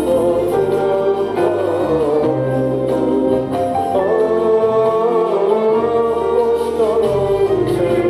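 Music from the stage show: a wavering melody line over a bass that changes note every second or so.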